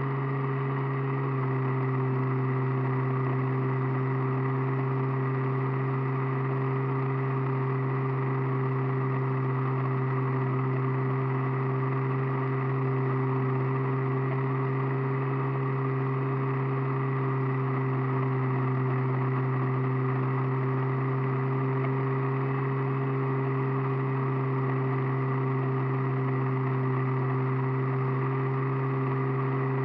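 Radio-controlled aircraft's motor and propeller running at a steady cruise, a continuous even hum heard close up through its onboard camera, with a slight change in tone about a second and a half in.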